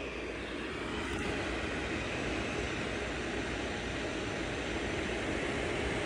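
Primevolve ceramic space heater's fan running, a steady whoosh of blown air that grows a little louder about a second in.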